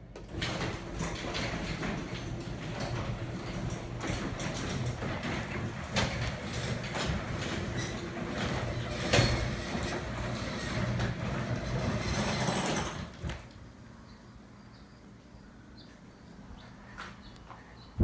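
LiftMaster garage door opener raising a large sectional garage door: a steady motor hum mixed with rattling and clanks from the moving door. It starts about half a second in and stops after about thirteen seconds.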